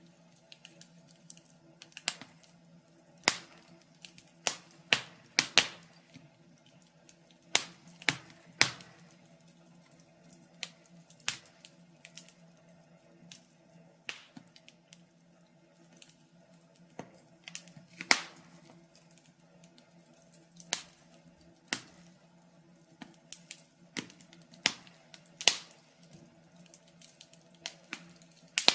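Log fire crackling: sharp, irregular pops and snaps of burning wood, one every second or so, over a faint steady hum.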